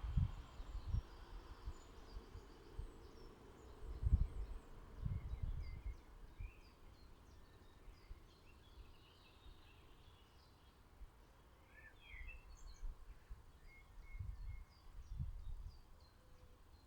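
Small garden birds chirping, many short high calls scattered throughout and busiest in the middle. Low rumbling bumps come now and then, the loudest about four seconds in.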